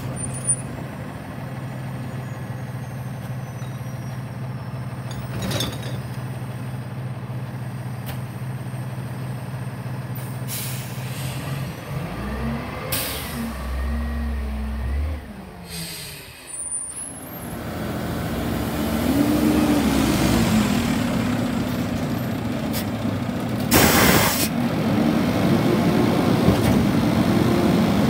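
Diesel recycling trucks running. The first truck idles steadily, revs up and down a few times, and lets out several short air-brake hisses. After a cut a second truck runs louder, with one sharp hiss about three-quarters of the way through.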